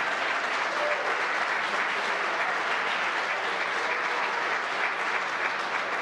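A crowd of SpaceX employees applauding and cheering steadily, greeting the deployment of Crew Dragon's drogue parachutes.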